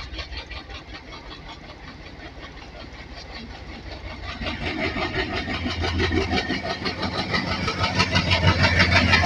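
WDM3A diesel locomotive's ALCO 16-cylinder engine working as it pulls a departing train toward and past, with a fast, even throb that grows steadily louder as the locomotive comes alongside.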